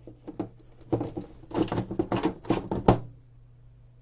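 The substantial plastic lid of a Magstim 200 magnetic stimulator's case being lifted off: a run of knocks and scrapes lasting about three seconds, the loudest a sharp knock near the end.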